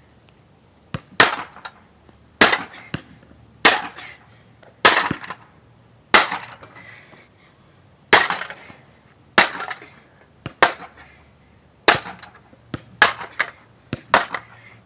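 Hammer blows on a small combination safe: about a dozen sharp, evenly paced strikes, roughly one every second and a bit, a few followed by a lighter rebound tap, as the safe is beaten until it breaks.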